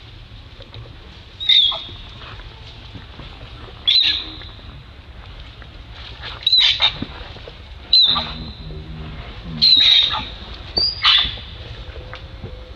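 Macaques screaming: about six short, high-pitched squeals, one every second or two, over a low steady hum.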